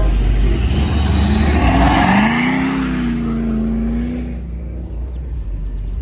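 A car engine accelerating hard past, its exhaust note rising in pitch and then holding, over a loud roar that fades away about four seconds in.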